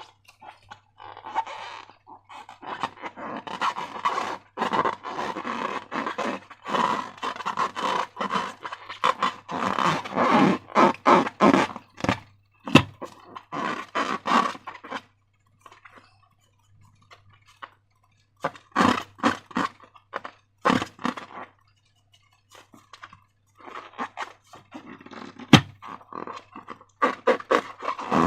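Slime being squished and worked by hand: clusters of wet squelching and crackling, with a few sharp clicks and two short lulls partway through.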